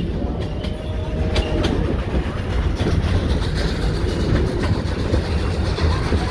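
Heritage train's wooden carriages rolling along the track, heard from an open carriage window: a steady low rumble with irregular clacks of the wheels over the rails.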